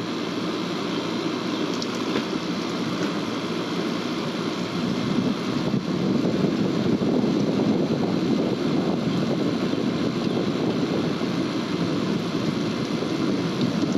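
Window air conditioner running, a steady rushing noise from its fan and compressor that grows a little louder about six seconds in.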